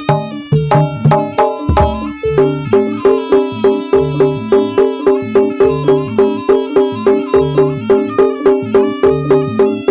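Jaranan music: struck tuned percussion and drums playing a fast, even, repeating beat, with low drum strokes coming in short groups.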